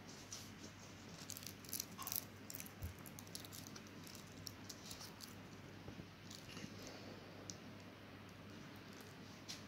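Faint scattered clicks and crinkles from a plastic henna cone being squeezed as its tip draws on paper, thickest in the first few seconds, over a steady low hum.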